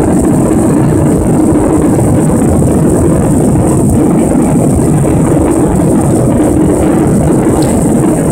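Steady, loud cabin noise of a Southwest Boeing 737 in flight: jet engine and airflow noise heard from inside the passenger cabin beside the wing, with a low hum and a faint high whine.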